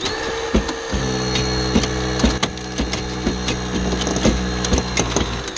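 Hurst hydraulic rescue spreader's pump running steadily while the spreader lets the van on its side down to readjust, with many sharp cracks and clicks from the loaded car body and cribbing. The pump stops near the end.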